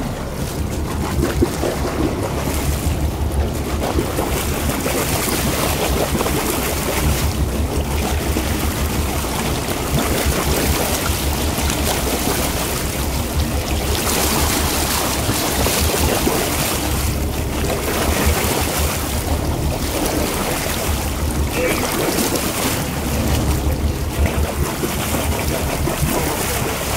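Wind and sea noise on a boat at open sea: wind buffeting the microphone over water sloshing, swelling and easing every few seconds over a steady low rumble.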